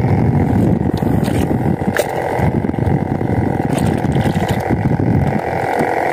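Wind buffeting the microphone over open water as a steady, gusting rumble, with a faint click about two seconds in.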